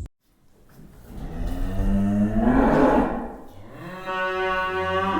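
Cow mooing twice. The first moo rises and swells, then falls away; a second, steadier moo begins near the end.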